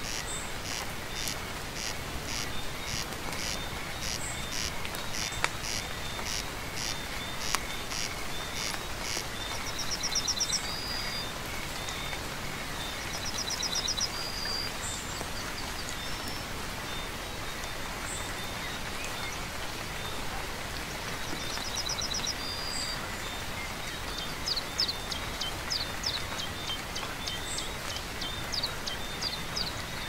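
Steady rain falling, with small animals calling over it. High chirps repeat about twice a second through the first third, short high trills come now and then, and a run of quick chirps comes near the end.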